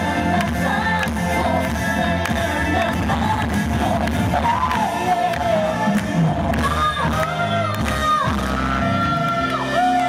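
Live K-pop stage performance: a woman singing into a microphone over a loud backing track with a steady dance beat and bass, played through the stage PA.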